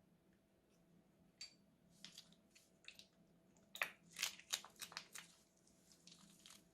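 Crunchy slime crackling as it is handled: a scatter of small crisp crackles and pops, coming thick and fast for about a second and a half near the middle.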